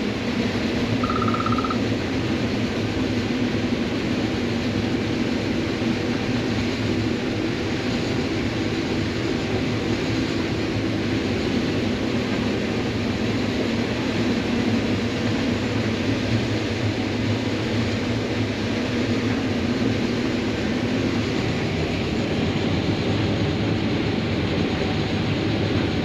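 Combine harvester running steadily while cutting corn: an even engine-and-machinery noise, with a short beep about a second in.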